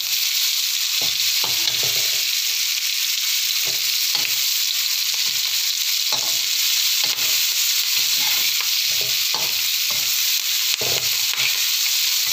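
Prawns and green chillies sizzling in hot oil in a large wok, a steady hiss, while a metal spatula stirs them with irregular scrapes and knocks against the pan. They are being fried until the chillies wilt.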